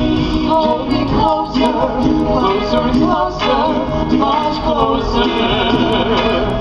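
Music with a singing voice over instrumental accompaniment, the voice holding wavering sung notes.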